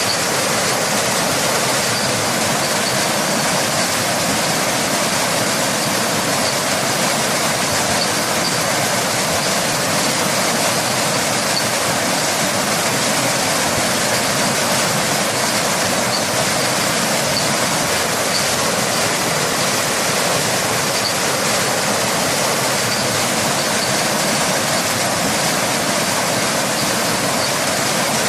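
Waterfall: water falling and rushing in a steady, even hiss that never lets up, with faint brief high ticks now and then.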